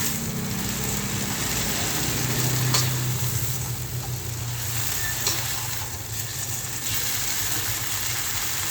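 Water spinach sizzling as it is stir-fried in a hot pan, with no water added. A spatula clicks against the pan twice, with a low steady hum underneath.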